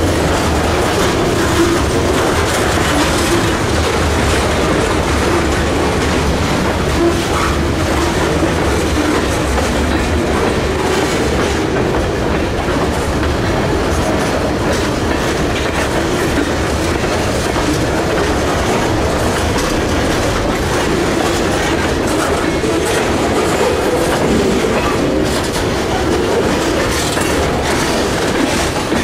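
Freight cars, covered hoppers and then tank cars, rolling past close by: a steady, loud rumble of steel wheels on the rail with clickety-clack over the rail joints.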